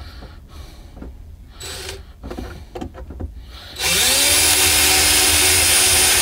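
A few quiet knocks, then about four seconds in an electric drill starts up. Its motor whine rises in pitch and holds steady as it bores a pilot hole from inside through the sailboat's fibreglass hull.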